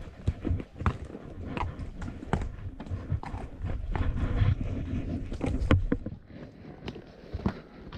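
A horse walking on a trail, its hooves clopping in an uneven beat of a knock every half second to second, over a steady low rumble.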